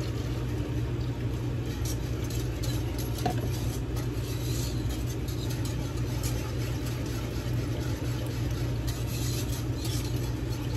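A wire whisk scraping and swishing in a saucepan as milk is whisked into a roux, the scrapes coming in spells, over a steady low machine hum like a fan or motor that is the loudest sound throughout.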